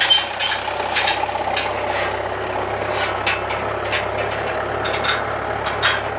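Massey Ferguson tractor's diesel engine idling steadily, with irregular sharp ticks over it.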